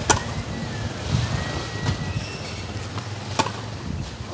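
Tennis ball struck by rackets in a doubles rally on a hard court: a sharp pop right at the start and another about three and a half seconds later, over a low steady rumble.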